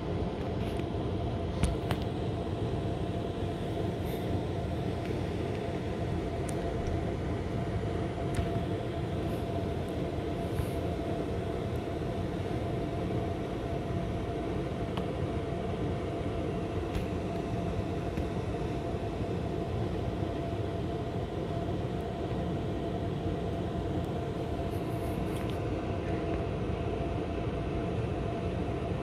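Hotel room air conditioner running: a steady fan rumble with a constant mid-pitched hum, picked up through its casing by a camera resting on top of the unit.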